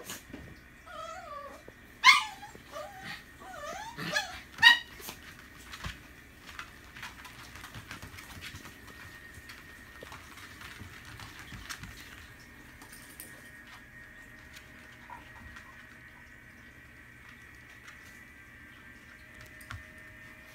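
Chesapeake Bay Retriever puppies play-fighting: a run of wavering whines and yips in the first five seconds, with two sharp loud yelps about two and four and a half seconds in. After that only scattered light taps and scuffles.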